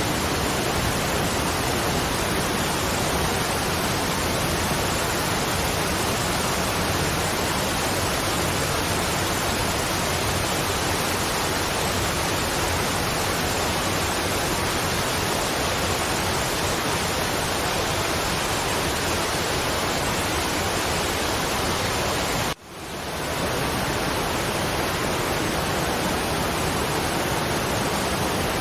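Waterfall's steady rushing water, an even hiss-like roar. About three quarters of the way through it cuts out abruptly for an instant and swells back in, like the seam of a looped recording.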